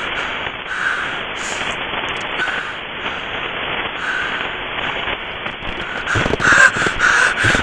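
Harsh static hiss, as from a degraded camera recording, broken by irregular rasping, croak-like bursts. The bursts grow louder and come faster near the end.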